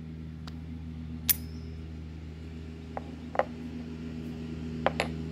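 Metal clinks and taps from a spark-plug socket and spark plugs being handled on a Ford 1.6 L EcoBoost cylinder head as the plugs are pulled and set down. There is one sharp clink with a short ring about a second in, then a few lighter knocks later on. A steady low hum runs underneath.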